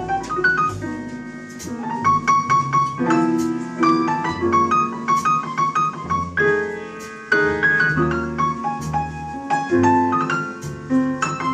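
Live small-group jazz, with the piano in front playing runs and chords over bass notes and drums.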